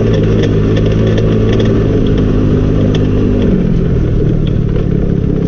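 Go-kart engine running steadily while the kart drives; its pitch drops a little about three and a half seconds in as it eases off.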